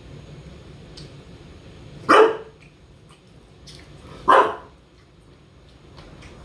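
English bulldog barking twice, two short loud barks a little over two seconds apart.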